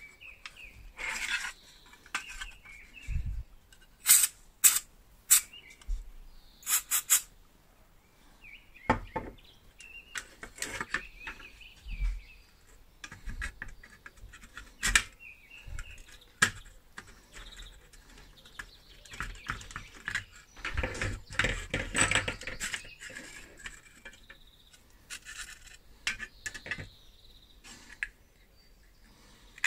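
Small metal parts of a rusty steel lamp clicking, clinking and scraping as it is taken apart with a screwdriver and pliers. There are a few sharp clicks about four seconds in and a longer stretch of scraping and rattling about twenty seconds in.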